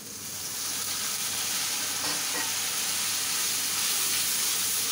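Hot onion, garlic and chilli masala in oil sizzling in an iron karahi as a little water is poured in; the sizzle swells within the first second and keeps going while a metal spatula stirs it. This is the spice paste being braised (koshano) with a splash of water.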